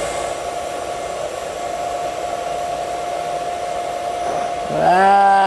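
TIG welding arc running steadily, a hiss with a thin high tone, while filler rod is fed into the puddle on a vertical-up joint. Near the end a louder, long-held tone starts and slowly falls in pitch.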